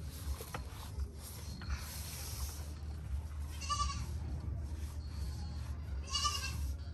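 An animal calling twice, each a short quavering cry, about two and a half seconds apart, over a steady low rumble.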